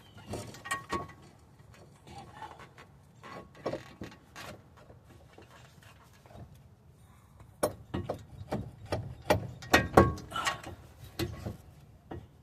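Scattered metallic clicks and knocks of hand tools and steel suspension parts being handled, a few with a short ring. They are sparse at first and come thick and fast over the last few seconds.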